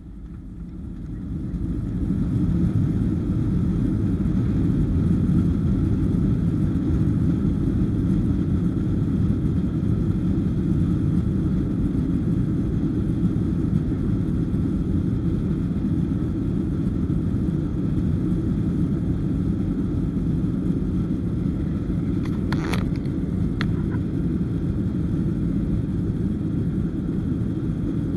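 Jet airliner's engines spooling up to takeoff thrust, heard from inside the cabin, with the takeoff roll under way. A deep rumble swells over the first two seconds and then holds steady, and a couple of short rattles come about 22 seconds in.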